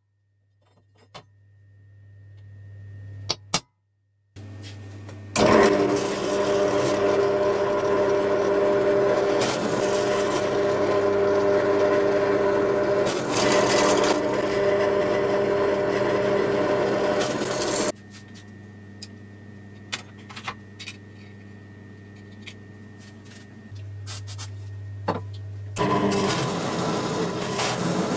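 Drill press drilling steel square tubing. After a few near-quiet seconds with light clicks, the press runs with a steady pitched drone for about twelve seconds as a small bit cuts. It drops to a low hum with scattered ticks, then starts cutting again near the end with a stepped bit.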